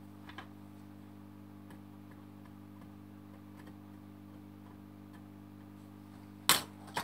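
Small clicks and taps of tweezers and a cotton swab working over a laptop motherboard while flux residue is cleaned off with isopropyl alcohol, over a steady low electrical hum. A sharp knock about six and a half seconds in is the loudest sound.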